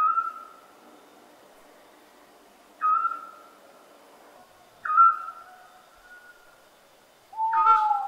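Owl calling: four short, clear calls about two seconds apart, each sliding quickly down in pitch then holding and fading. The last call comes with a lower, longer note.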